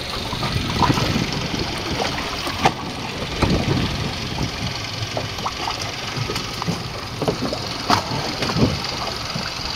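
Boat's outboard motor idling under a steady wash of wind and water noise, with a few short knocks.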